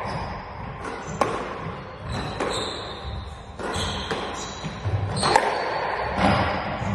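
Squash rally: the ball cracks sharply off rackets and the court walls about once a second, with short high squeaks of players' shoes on the court floor between hits.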